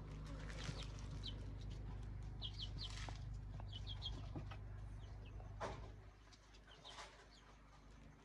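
Chickens in a poultry pen chirping: short high calls in small clusters of two or three, with a few sharp knocks, over a low steady rumble that drops away about six seconds in.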